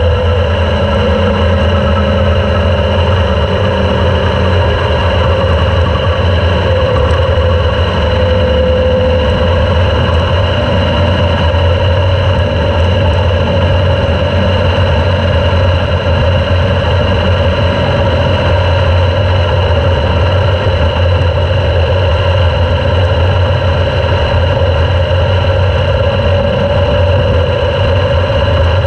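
Super Sprint race car engine running loudly and steadily, heard from a camera mounted in the car, with only slight changes in pitch.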